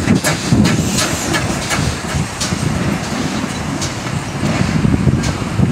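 GWR 5700 class 0-6-0 pannier tank steam locomotive pulling away, with sharp exhaust chuffs in the first second or two that come less often as it draws off, over a steady low rumble of the train running on the track.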